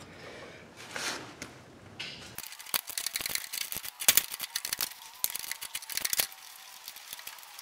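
Ratchet wrench clicking in quick runs, with metal clinks of the socket and extension, as a spark plug is worked loose from a lawn tractor's engine. The clicking starts about two and a half seconds in and thins out near the end.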